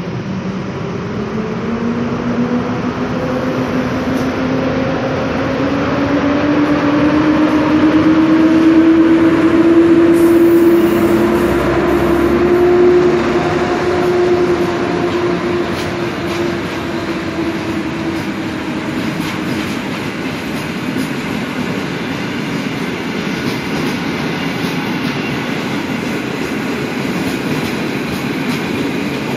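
PKP Intercity passenger coaches rolling past close by, a steady rumble of wheels on rail. A tone rises in pitch and grows louder, loudest about ten to thirteen seconds in, then fades into even rolling noise with faint wheel clicks.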